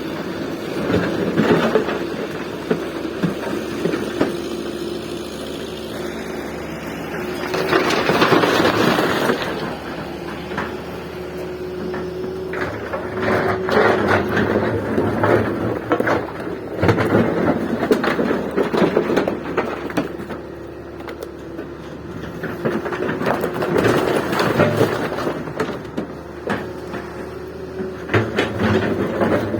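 Daewoo 170W wheeled excavator working: its engine runs steadily under load while the bucket knocks and scrapes, and material pours out with a louder rush about eight seconds in.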